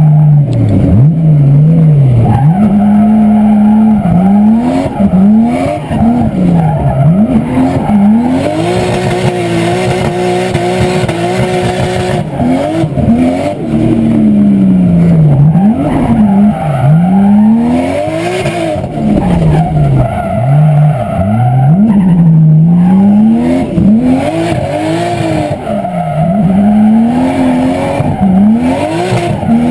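A car engine driven hard, recorded through a GoPro's built-in microphone. The engine note climbs, drops back and climbs again over and over, with a long steady high stretch about ten seconds in.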